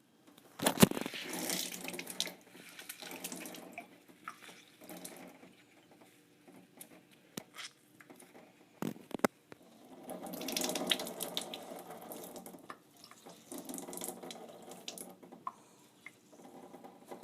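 Water running and splashing, as from a tap into a sink, in several spells with quieter gaps, broken by a few sharp knocks, the loudest about a second in.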